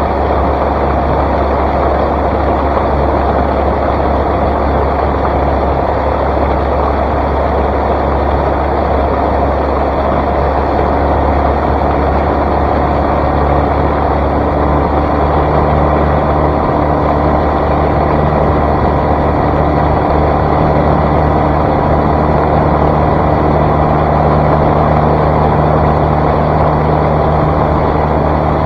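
Outboard motor on a small flats skiff running at high speed over a steady rush of wind and water. About halfway through the engine's hum becomes steadier and stands out more clearly.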